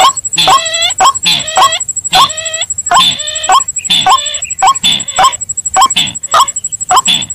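Bird-lure recording of rail calls, white-breasted waterhen (ruak-ruak) mixed with sintar ladang. It is a loud, rapid series of upslurred calls, about three a second, over a thin steady high-pitched tone.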